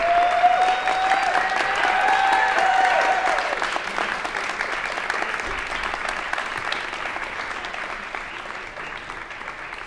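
Concert audience applauding after a live performance, with one long cheering voice held over the clapping for the first three seconds or so; the applause then gradually dies down.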